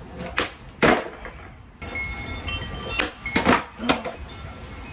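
Skateboard clacking and slapping on pavement in a run of sharp knocks: a couple near the start, the loudest about a second in, then a quick cluster around three to four seconds in, as the board is popped and lands or hits the ground on flip-trick attempts. A low wind rumble runs underneath.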